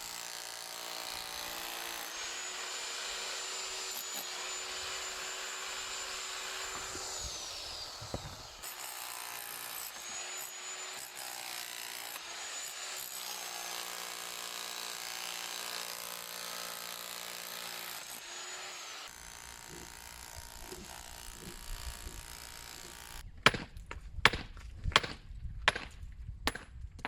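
Electric power tool running in two long runs, its high motor whine spinning up, holding, then falling away as it stops. A run of sharp knocks follows near the end.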